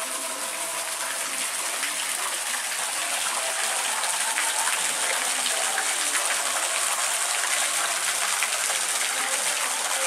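Water pouring from the spouts of a stone fountain and splashing into its basin: a steady gushing.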